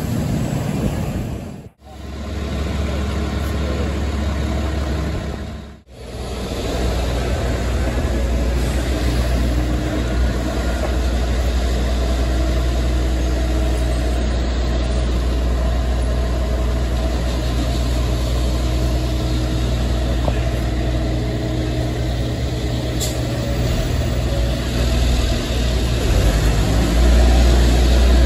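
Heavy diesel truck engines running in street traffic. A box truck is heard briefly, then, after two short gaps, a concrete mixer truck's diesel engine runs steadily as a low rumble for most of the stretch and gets louder near the end.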